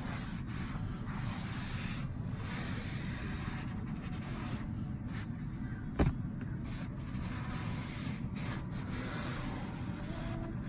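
A damp microfiber towel rubbed back and forth over a white synthetic-leather car seat, wiping up spilled red wine. A single sharp knock about six seconds in.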